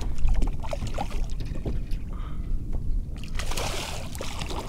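A hooked redfish thrashing and splashing at the water's surface beside a kayak, the splashing getting heavier about three seconds in.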